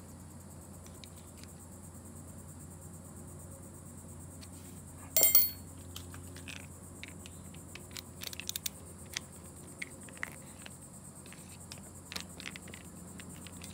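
Small metallic clicks and clinks of hand tools working the breaker-points plate during a timing adjustment, with one sharper clink about five seconds in, over a steady low hum.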